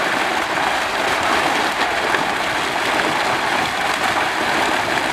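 Catla, rohu and mrigal carp crowded in a drawn-in net, thrashing and splashing at the water's surface in a steady, dense mass of splashing.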